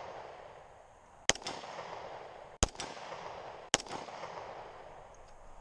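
Three gunshots roughly a second and a quarter apart. Each sharp crack is followed by a quick second crack and a short echo that dies away.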